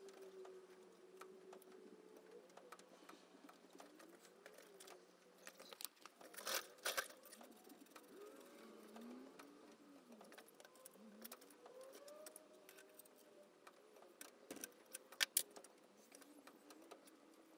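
Quiet workbench handling of metal parts: scattered light taps and clinks, with a couple of sharper clinks about six and a half seconds in and again near the end.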